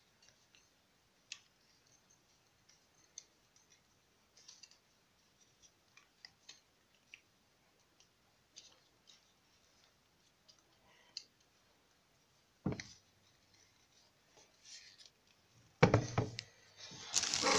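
Scattered small plastic clicks from a camera tripod's head and legs being handled and adjusted, with a single knock about thirteen seconds in and louder clattering near the end.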